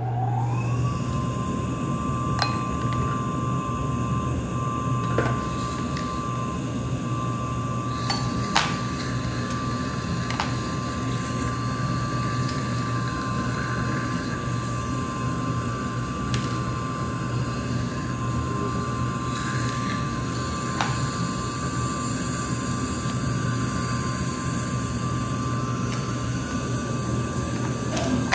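Dental suction (saliva ejector) switching on: its motor rises quickly in pitch, then runs with a steady whine over a low hum. Now and then there is a light clink of metal dental instruments.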